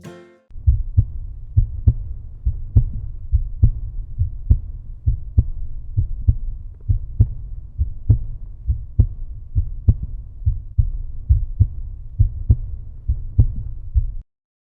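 Outro music: a deep, bass-heavy beat pulsing a little faster than once a second. It cuts off suddenly near the end.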